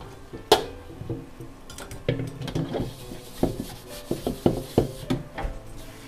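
Metal ladle scraping and knocking against a wok as noodles are stir-fried, an irregular run of scrapes and clanks with the sharpest about half a second in.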